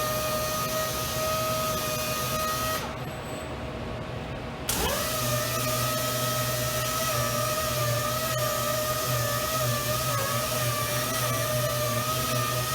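Powered sander on a robotic sanding cell running with a steady whine and hiss. About three seconds in it cuts out, and just before five seconds it starts again, its whine rising quickly to speed.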